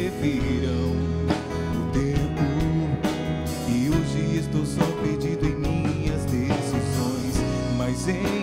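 Instrumental break in a Christian pop worship song, with a band playing guitar and drums.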